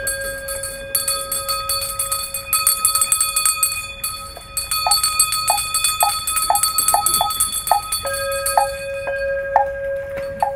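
Buddhist ritual instruments. A bowl bell is struck as the chanting ends, its tone ringing on, and struck again about eight seconds in, over the rapid jingling of a shaken ritual hand bell that stops about nine seconds in. From about five seconds in, a wooden fish is knocked at a steady beat.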